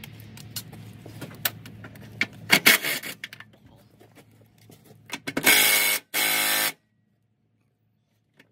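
A few knocks and clatter, then a car horn sounds two short blasts about five seconds in.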